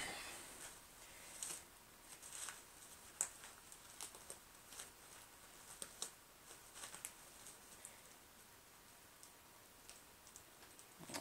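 Puppy chewing a crumpled wrapper: faint, irregular crinkles and crackles, some in quick little clusters, thinning out in the last few seconds.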